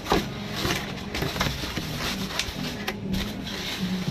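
Flat cardboard boxes being folded into shape by hand: a series of sharp creasing snaps and rustles of the card.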